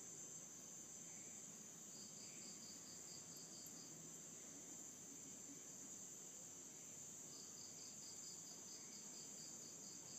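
Crickets trilling steadily in a high, even drone, with two runs of rapid chirps, about five a second, from another insect, one starting about two seconds in and one about seven seconds in.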